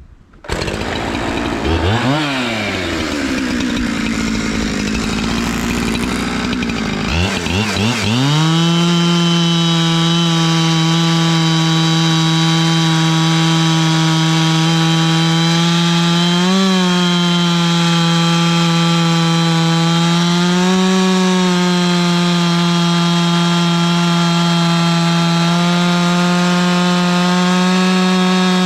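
Two-stroke chainsaw on a chainsaw mill comes on suddenly and revs up and back down briefly. From about eight seconds in it runs at steady high throttle while ripping a log into boards, its pitch wavering briefly twice under the load of the cut.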